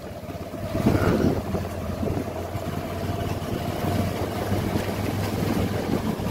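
A motorbike's engine running steadily while ridden slowly: a steady low hum with a held higher tone over a noisy rush, a little louder about a second in.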